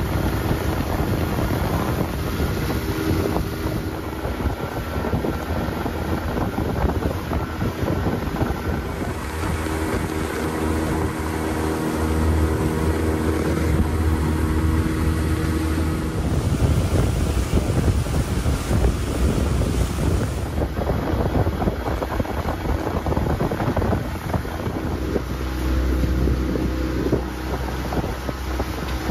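Honda BF15 four-stroke outboard motor running steadily under way, driving an inflatable boat, with wind buffeting the microphone and water rushing past the hull.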